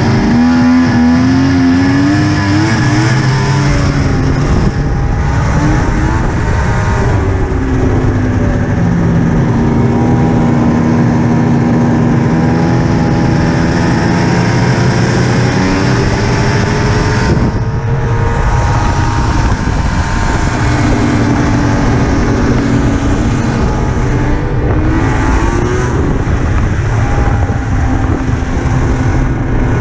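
Polaris RMK Ultra snowmobile's two-stroke engine running hard under way, its pitch rising and falling with the throttle. It eases off briefly about two-thirds of the way through and again shortly after.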